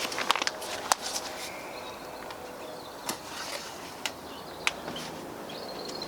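A few sharp clicks and taps from handling things at close range, over an outdoor background with short, faint bird calls.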